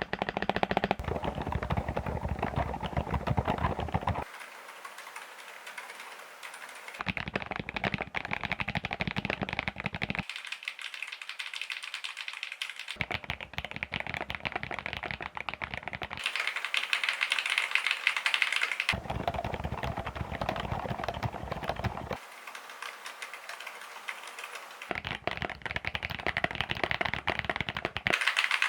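Fast continuous typing on a Qsenn Q87 mechanical keyboard, a dense stream of key clicks. The sound changes about every three seconds as the switch type changes, alternating between deeper, fuller stretches and brighter, thinner ones.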